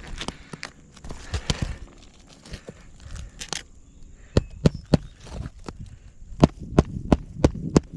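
Hammer driving roofing nails into asphalt shingles: about ten sharp strikes, roughly three a second, in the second half. Before them comes scraping and rustling from the shingles being handled.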